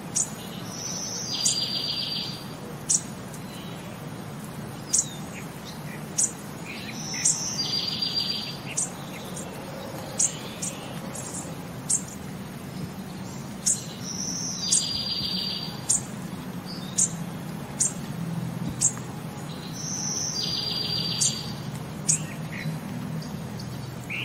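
Songbirds chirping, with short high chirps about once a second and a short buzzy trill that comes back in the same form about every six to seven seconds, as in a looped birdsong ambience track.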